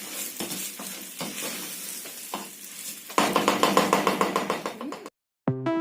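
Pilau rice, meat and fried onion in a pot sizzling as it is stirred, just after the water goes in. About three seconds in, a louder, rapid crackling sizzle starts and cuts off suddenly; piano music begins near the end.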